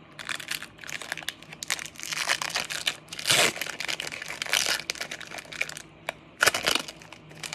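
Foil wrapper of a Pokémon trading card booster pack being torn open and crinkled, in a run of irregular rustles and crackles, loudest about three seconds in and again near the end.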